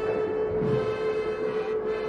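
Dark droning music: one steady held tone with many overtones, and a deep low swell partway through.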